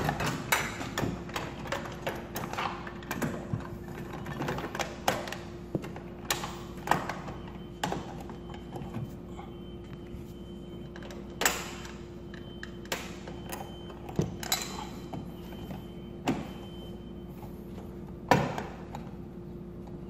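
Thermostat cover and end cap being pushed and fitted onto the metal housing of a Cadet electric baseboard heater: irregular clicks and knocks, with louder knocks about eleven seconds in and again near the end. A faint steady hum runs underneath.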